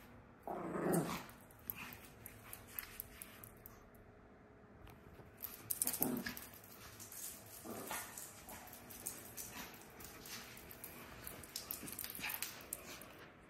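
Yorkshire terrier growling in short bursts, strongest about a second in and again around six and eight seconds, as it wrestles and shakes a plush toy. Scattered clicks and scuffs of its claws on a hardwood floor run between the growls.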